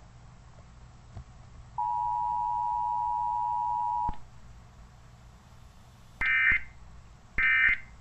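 Emergency Alert System broadcast audio: a steady two-note attention tone for about two seconds, then, after a pause, two short screeching bursts of the alert's digital data code a little over a second apart.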